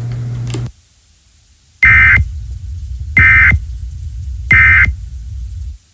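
Emergency Alert System end-of-message signal: three short buzzy bursts of SAME digital data tones, about a second apart, over a low hum that cuts off near the end.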